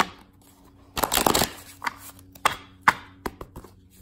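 A deck of hand-cut mock-up tarot cards being shuffled by hand. There is a sharp tap at the start, then a quick, loud flurry of cards rustling together about a second in, followed by four or so separate card snaps and taps.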